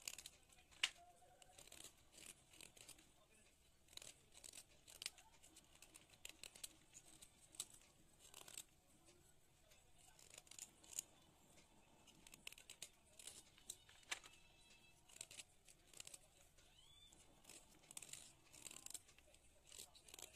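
Knife blade scraping and cutting into a stick of white school chalk: faint crisp scratches and small snaps at irregular intervals.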